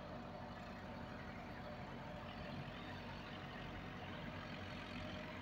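Massey Ferguson 385 tractor's diesel engine running steadily under load as it drags a laser land-leveller blade through loose soil.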